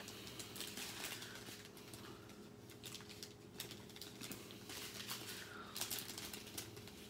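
Faint crinkling and rustling of small plastic packets of diamond-painting drills being handled, over a steady low hum.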